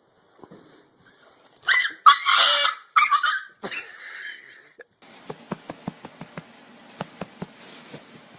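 A domestic animal giving a few loud, harsh cries a couple of seconds in, then a softer one. After a sudden change, a run of light clicks over steady hiss.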